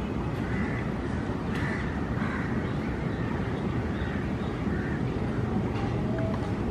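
Crows cawing repeatedly, a short call every second or less, over a steady low background rumble.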